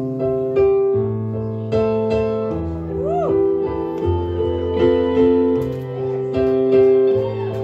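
Stage keyboard playing the opening chords of a song in a piano sound, each chord held with a bass note that changes about every one and a half seconds. About three seconds in, a note glides up and back down over the chords.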